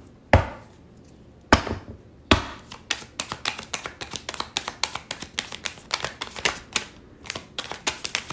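Three sharp thumps in the first two and a half seconds, then a deck of tarot cards being shuffled by hand: rapid, crisp clicking of the cards, several a second.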